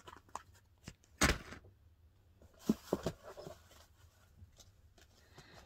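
Product boxes and packaging being handled: a few knocks and short rustles, the loudest a little over a second in and a small cluster around three seconds.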